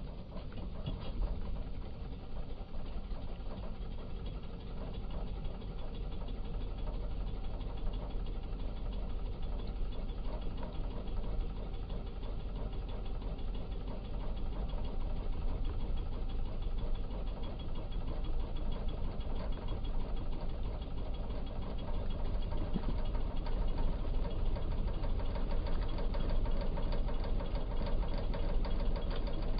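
Small outboard motor running steadily at low speed, growing a little louder in the second half.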